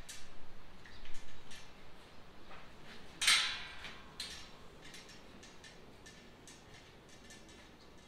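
Metal kennel parts clinking and rattling as the rods are adjusted: scattered light taps, one louder rattle about three seconds in, then only faint handling noise for the second half.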